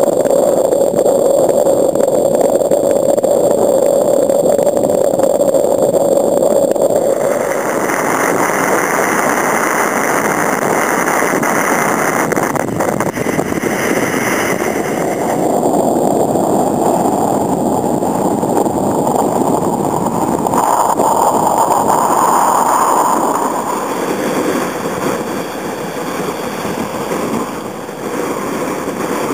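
Breaking surf washing around a kayak, mixed with strong wind noise on the microphone. It is a loud, steady rush whose tone shifts about seven seconds in and again around sixteen seconds in.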